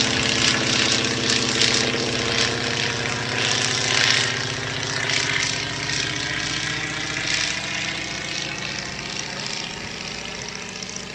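Old biplane's piston engine and propeller running steadily as it flies overhead, slowly growing fainter over the second half.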